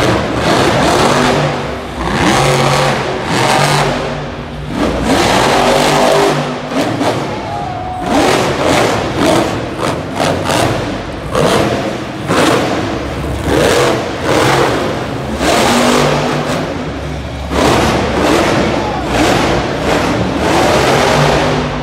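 Jester monster truck's supercharged V8 revving hard again and again through a freestyle run, its pitch rising and falling in swells every second or two.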